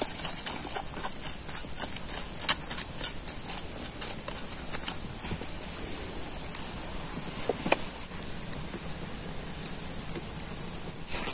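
Scattered light knocks and clicks, irregular and busiest in the first few seconds, over a steady high-pitched drone.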